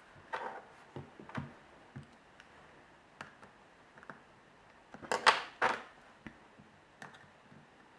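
Light clicks and scrapes of a small screwdriver prying the front screen assembly out of an iPhone 3G, with a louder run of scraping clicks about five seconds in.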